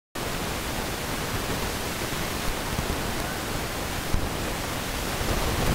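Wind on the microphone: a steady broad hiss with an uneven low rumble from gusts buffeting it.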